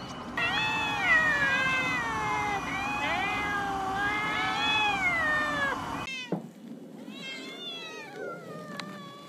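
Several cats meowing at once, loud overlapping drawn-out calls, begging to be fed. About six seconds in this drops to fainter, shorter meows.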